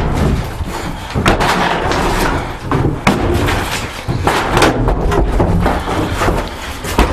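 Repeated heavy bangs of wooden wall boards being struck and knocked loose from the studs: a string of separate blows at uneven intervals, with a quick cluster of hits about two-thirds of the way through.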